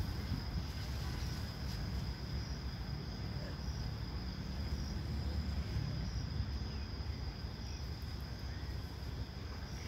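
Insect calling: a steady high-pitched drone with faint chirps repeating every half second or so. A low, even rumble runs under it.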